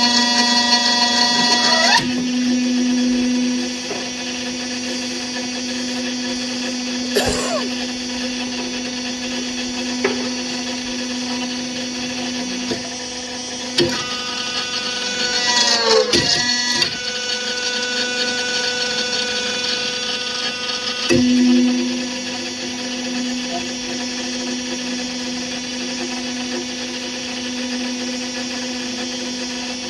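An electric motor on a machine running with a steady hum and whine, with a few sharp knocks and a brief cluster of falling pitch sweeps about halfway through.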